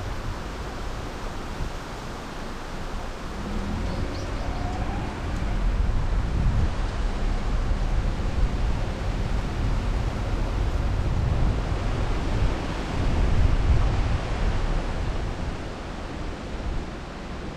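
Car on the move: a steady rumble of road noise with wind buffeting the microphone, swelling and easing in loudness.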